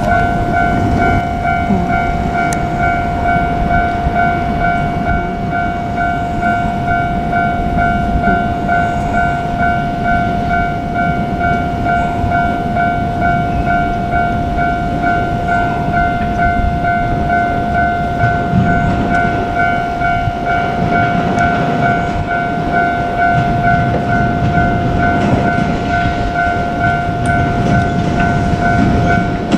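Japanese level-crossing warning bell ringing steadily in a fast, even repeating pattern, over the low rumble of a JR Kyushu 817 series electric train running on the rails.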